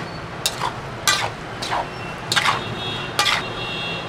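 Metal spatula scraping around a large metal pan while mixing masala-coated vegetables, about six strokes, each scrape sliding down in pitch. A steady low traffic hum runs underneath.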